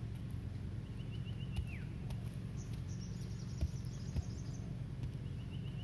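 A bird calls twice, each call a short trill ending in a quick falling note, about a second in and again near the end, with a fainter, higher rapid trill in between. Under it runs a steady low hum.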